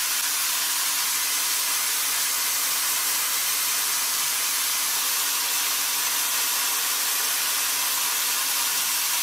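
CNC machining center tapping an M12 thread into an aluminium part: a steady, even hiss over a faint steady hum.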